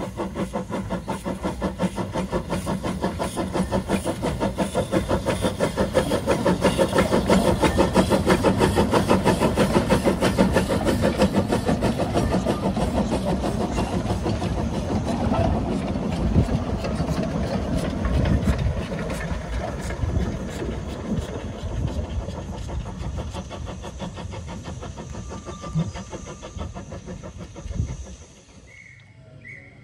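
Narrow-gauge steam locomotive hauling a passenger train past, its exhaust beating in a quick, even rhythm. The beats grow louder as it approaches and fade gradually as it draws away.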